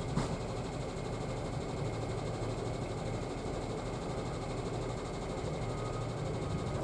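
Dump truck's diesel engine running steadily, with one short click about a quarter second in.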